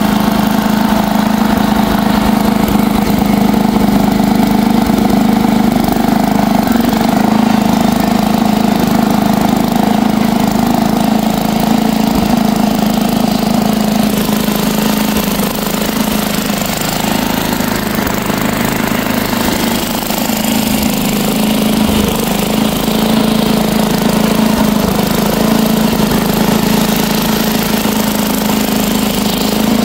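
Bolens 1050 garden tractor's 10 hp engine running steadily after being started, running good.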